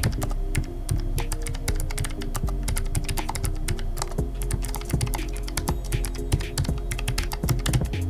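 Typing on a Keychron low-profile mechanical keyboard: a quick, uneven run of key clicks, several a second, over background music.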